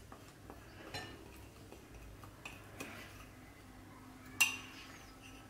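Metal spoon clinking and scraping against glass while jaggery powder is spooned out of a small glass into a glass mixing bowl. A few light clinks, the loudest about four seconds in.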